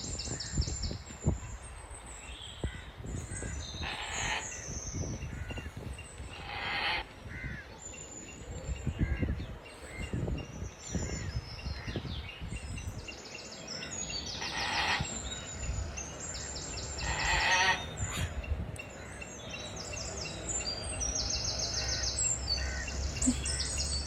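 Parrot calling: trains of rapid high chirps again and again, with several louder, harsher squawk-like calls of about half a second each, over a low rumble.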